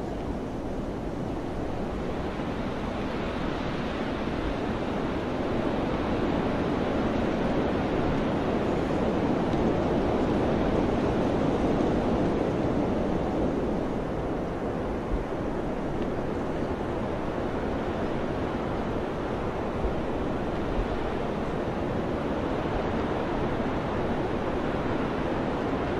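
Wind rushing steadily over mountains, slowly swelling into a stronger gust a few seconds in and easing back off around the middle.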